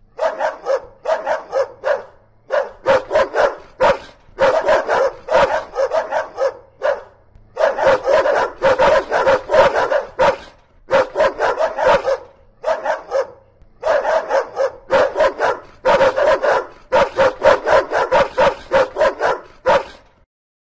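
Dog barking rapidly, several quick barks a second, in about six long runs separated by brief pauses.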